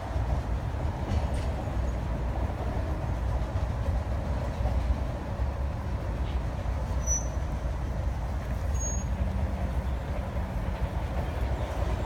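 Steady low rumble of outdoor background noise, with honeybees buzzing from the opened hive and the bee-covered frames.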